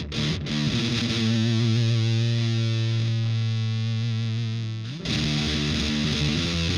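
Electric guitar played through the LARAN fuzz pedal, heavily distorted: one note held for about five seconds, then more notes played.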